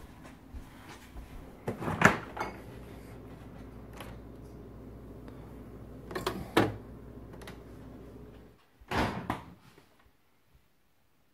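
A refrigerator door opened with a knock about two seconds in, glass jars clinking on the shelf as one is taken out, and another clatter about nine seconds in, all over a low steady hum that stops shortly before the last clatter.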